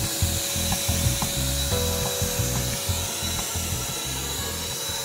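Lotus Paint Zoom 600 W electric HVLP paint sprayer running: a loud, steady airy hiss with a constant high whine from its turbine motor.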